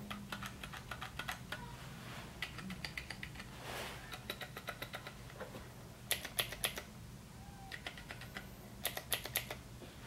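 Typing on a RedScarf 68 mechanical keyboard whose Cherry MX Blue switches are fitted with J-clip spacers, which take away the click and leave a tactile keystroke. Keys are struck in quick runs with short pauses between, the loudest runs about six seconds in and near the end.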